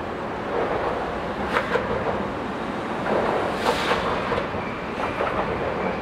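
Road traffic crossing the bridge overhead: a steady rumble with a few sharp clacks, over the sound of flowing creek water.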